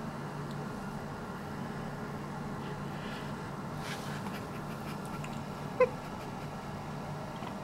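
Corgi gives a single short, high whimper about six seconds in, over a steady low hum and faint rustling of fur being stroked.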